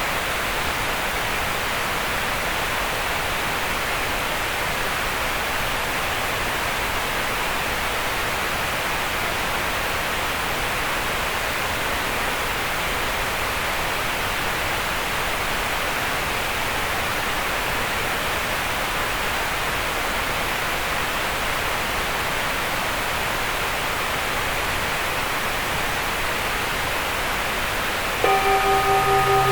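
Green noise: a steady, even hiss centred in the middle range, with little deep bass or high treble. About a second before the end, sustained tones with overtones, one pulsing slightly, and a low hum come in over it and are louder than the noise.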